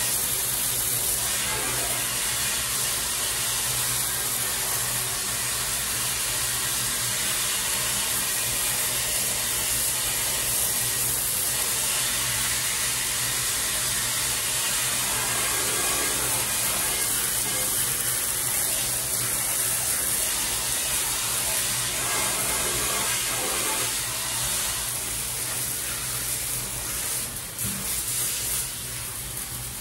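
Steady rush of water running in a bathtub, easing off near the end.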